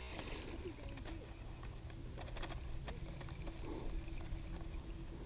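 Fishing reel and rod handled while a hooked bass is being reeled in: a low rumble of wind and handling on the microphone, with a few scattered clicks about one, two and three seconds in.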